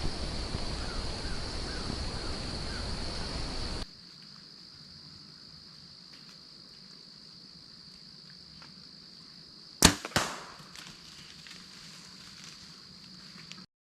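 A bow being shot at a deer: two sharp cracks close together, the bowstring's release and the arrow's hit, about ten seconds in. A steady high insect drone runs underneath.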